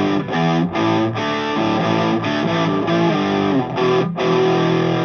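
Distorted electric guitar, a Les Paul bridge humbucker through a Bruce Bennett Brown Sound high-gain pedal and a Bogner 4x12 cab simulation, heard through studio monitors. A riff of changing chords with short breaks, ending on a chord held from about four seconds in.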